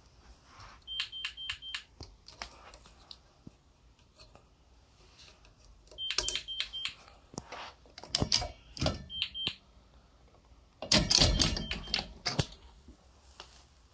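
GE Simon XT alarm panel beeping: short high-pitched beeps in quick runs of three or four, about a second in, around six seconds in, and again near nine and eleven seconds. Between them come clicks and knocks from the metal baby gate and door being handled, and the loudest moment is a burst of clatter about eleven seconds in.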